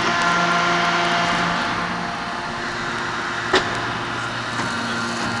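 2500 t hydraulic open-die forging press and its 8 t manipulator running: a steady machine hum with several held tones that change pitch a couple of times, and one sharp metallic knock about three and a half seconds in.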